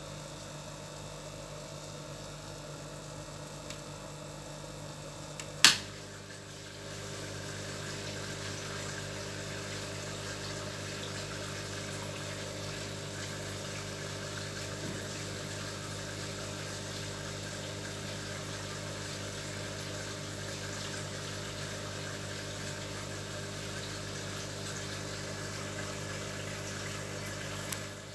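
Steady hum of a crab tank's pump with a watery hiss. A sharp click comes about five and a half seconds in, after which the hiss is slightly louder, and a smaller click comes near the end.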